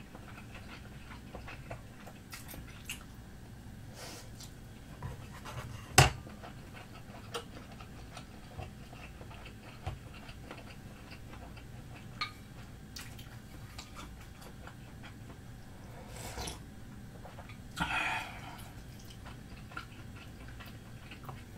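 Soft eating sounds: fish cake being chewed, with scattered light clicks of wooden skewers and chopsticks against a glass bowl, the sharpest about six seconds in.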